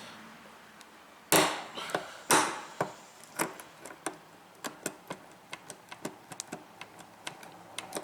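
Knocking and tapping on a portable RV waste tank's wheel and axle as it is worked into place. Two heavy knocks come in the first few seconds, then a run of lighter, quicker clicks and taps.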